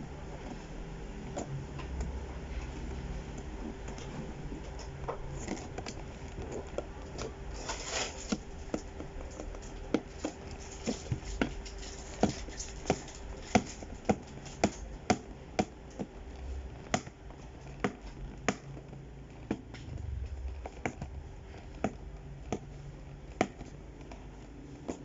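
Hands handling a toy playset's box and small plastic pieces: irregular sharp clicks and taps, thickest through the middle, with a brief scraping rustle about eight seconds in, over a faint steady hum.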